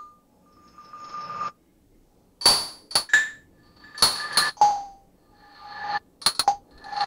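Synthesized metallic pings and bell-like hits from a Reaktor Blocks modular synth patch, each ringing briefly, in an irregular pattern. Twice a tone swells up and cuts off abruptly, and the ringing pitch shifts between hits as the oscillator frequencies are changed.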